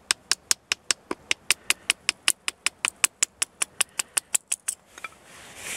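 Wooden baton striking the spine of a knife in quick, even taps, about five a second, driving the blade down to split a small stick; the tapping stops near the end.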